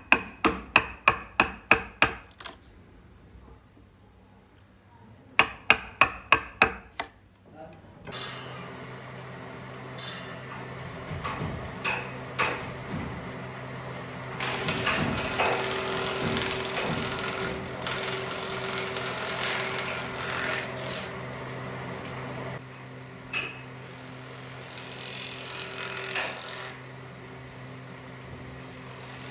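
Hammer blows, ringing sharply, in two quick runs of strikes about four a second: nine at the start and five more a few seconds later. From about eight seconds in, a steady low hum with mixed noise takes over.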